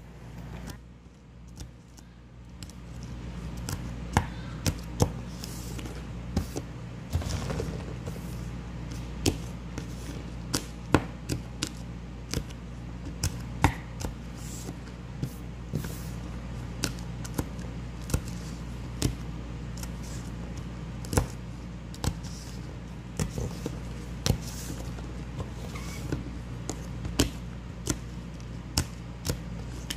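A chopstick stabbing through fresh green chili peppers into a wooden board, pricking holes in them for pickling: sharp taps at irregular intervals, about one or two a second, starting a few seconds in, over a steady low hum.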